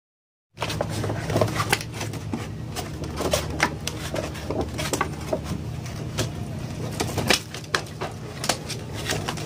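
Crinkling and rustling of plastic packaging being handled, many short crackles and clicks, over a steady low hum. It starts abruptly about half a second in.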